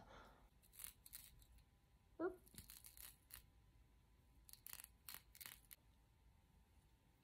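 Faint, short scratching and snipping sounds, several spaced out and then a quick cluster in the second half, from a sharp tool and fingertips working the hair and lace at a wig's hairline. A brief pitched note, like a short hum or squeak, sounds about two seconds in.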